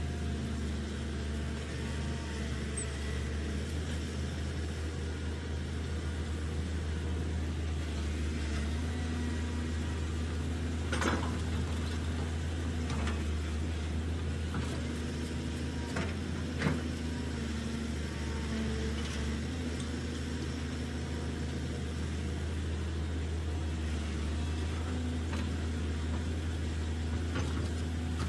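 Radio-controlled toy CAT excavator working in sand: a steady motor hum with a whine that comes and goes as the boom and bucket move, and a couple of sharp clicks, the loudest about two-thirds of the way through.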